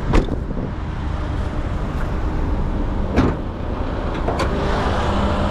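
Bonnet of a Perodua Myvi being opened: a sharp clack near the start, a louder clunk about three seconds in and a smaller knock a second later, as the release and latch are worked. A steady low engine rumble runs underneath.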